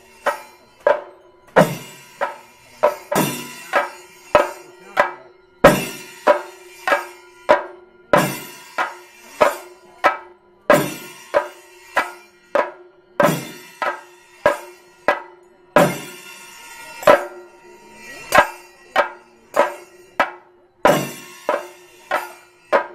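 Chenda drums, Kerala's cylindrical temple drums, struck with sticks: loud, sharp strokes at an uneven pace, about one or two a second, each ringing briefly, over a faint steady hum.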